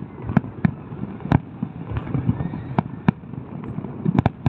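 Fireworks bursting: about seven sharp bangs at uneven intervals, the loudest about a second and a half in, with a close pair near the end, over a steady low background rumble.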